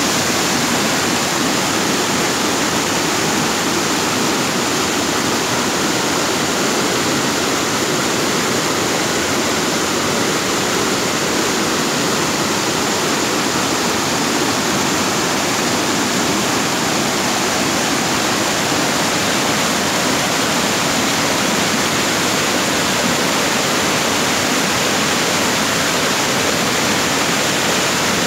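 Water from an overflowing dam pouring over its spillway and rushing over rocks below: a steady, loud rushing that holds evenly throughout.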